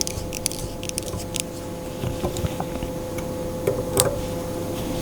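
Light handling noises and scattered faint ticks from working tying materials at a bench, with a sharper click about four seconds in, over a steady hum.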